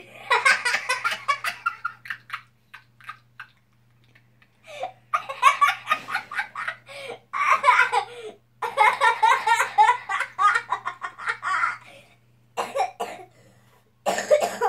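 A young boy laughing hard in several long fits, with short quieter gaps between them.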